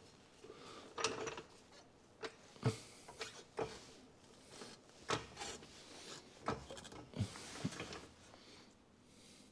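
A steel bolt being worked through a rear lower control arm and its mount: irregular sharp knocks and short scrapes of metal on metal, about a dozen in all.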